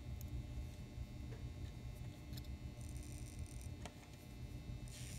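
Small motor of an N scale Bachmann 0-6-0 locomotive chassis running faintly on very low voltage during a bench test, with a few light ticks. The motor starts just after the leads go on and stops near the end.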